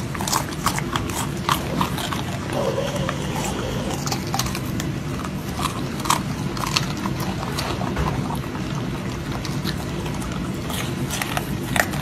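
Two golden retriever puppies crunching and chewing raw broccoli: many sharp, irregular crunches over a steady low hum.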